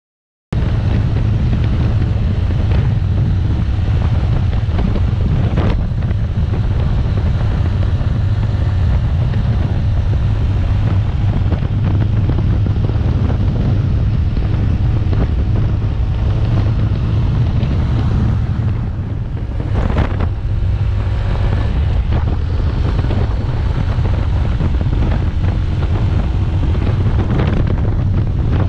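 Wind buffeting the microphone on a moving Yamaha Crypton T110 motorcycle, over the steady running of its small single-cylinder four-stroke engine. It starts abruptly about half a second in.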